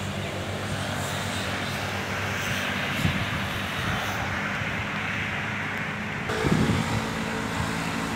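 Road traffic: a steady rush of vehicle noise that swells through the middle, over a faint low engine hum, with a brief low rumble about six and a half seconds in.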